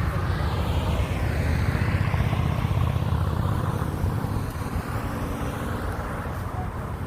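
Steady low rumble of a passing vehicle's engine, easing off after about four seconds.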